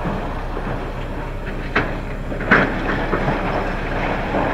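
Steady rolling rumble with two sharp knocks a little under a second apart near the middle.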